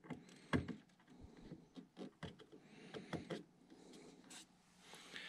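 Faint, scattered small clicks and knocks of fingers fitting a washer in behind an RC plane's motor, shimming it to set the motor's thrust angle.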